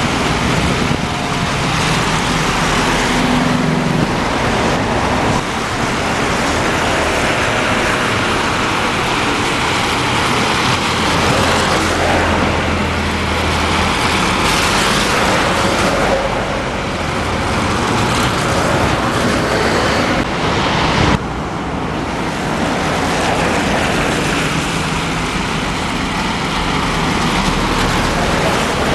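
Double-decker buses passing close by one after another in city traffic, engines running under steady road and traffic noise.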